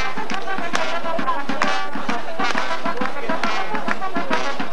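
Live band music with brass instruments over a quick, steady drum beat, with crowd voices underneath.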